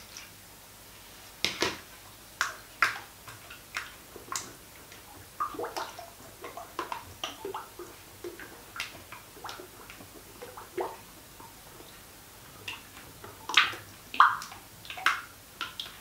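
Cold-process soap batter in a plastic bucket being stirred by hand as fragrance oil is mixed in: irregular soft sloshes and taps, starting a second or so in.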